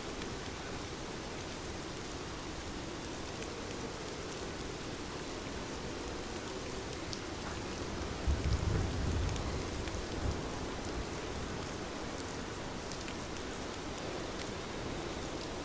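Steady rain falling, a constant hiss with scattered drop ticks. A brief low rumble swells about eight seconds in and again shortly after.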